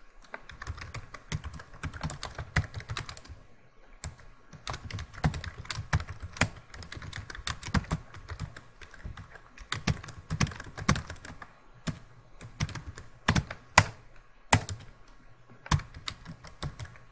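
Typing on a computer keyboard: quick runs of keystrokes broken by short pauses, with a few keys struck noticeably harder than the rest in the second half.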